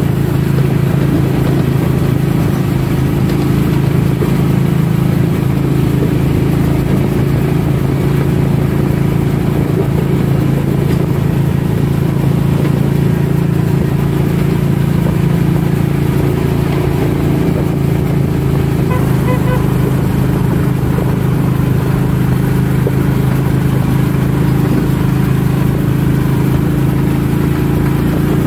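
Small narrow-gauge scenic train running along its track, heard from inside the car: a loud, steady drone of motor and wheels on rail.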